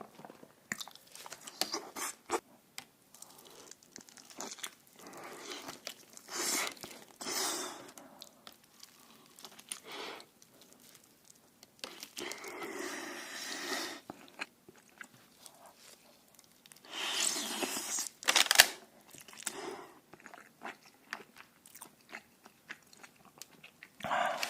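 Close-up eating sounds: chewing and crunching bites of food, with many small wet clicks and a few louder, longer noisy stretches.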